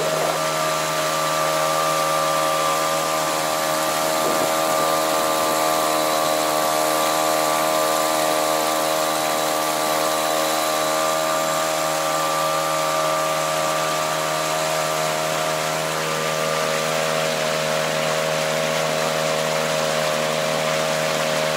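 Mercury 3.3 two-stroke outboard motor running steadily at an even pitch, a new engine being run in.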